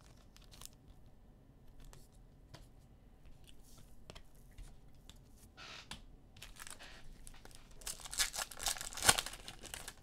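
Foil wrapper of a football trading-card pack being torn open and crinkled, louder in the last few seconds. Before it come a few faint clicks of cards being handled.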